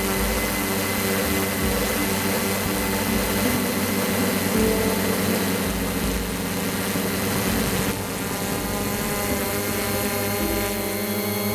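Cheerson CX-20 quadcopter's motors and propellers whining steadily, heard from the camera mounted on the drone. The whine changes pitch about eight seconds in.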